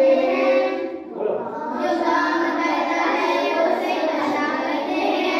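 Children's voices singing together in chorus, in long held notes, with a brief break about a second in.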